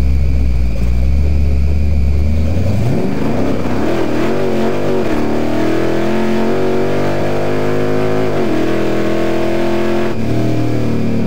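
Big-block Chevrolet V8 drag car engine, running low, then revving up sharply about three seconds in. It holds high revs and drops back in two steps near the end.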